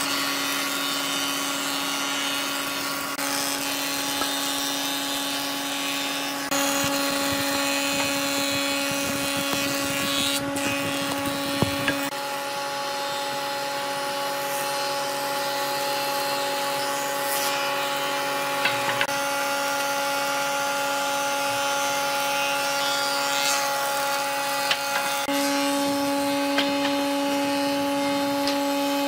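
An electric power tool running steadily with a constant whine over a hiss, its tone shifting a few times as the load changes, with a few light knocks.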